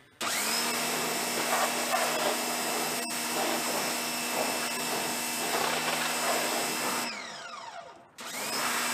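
Sun Joe SPX4001 electric pressure washer running with its trigger held: the steady whine of the electric motor and triplex swash-plate pump under the hiss of the water jet. About seven seconds in it shuts off, the whine falling in pitch as it spins down, then cuts back in briefly near the end.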